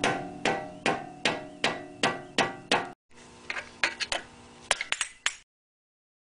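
Hammer blows on the BMW E46's front wheel hub and brake rotor: steady, ringing metal-on-metal strikes about two and a half a second. After a break about three seconds in comes a run of lighter, quicker, uneven taps.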